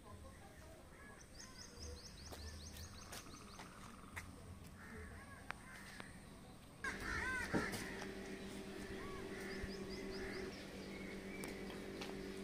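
Crows cawing again and again, loudest about seven seconds in, with a small bird's quick run of high chirps near the start. From about seven seconds on, a steady low hum sits under the calls.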